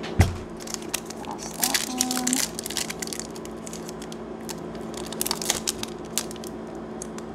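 Pokémon trading card booster pack's foil wrapper crinkling and tearing as it is torn open by hand, a run of sharp crackles, with a heavier thump just after the start.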